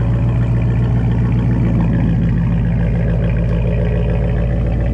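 Chrysler 300S exhaust with the engine idling steadily just after a start, the engine already warm from earlier driving.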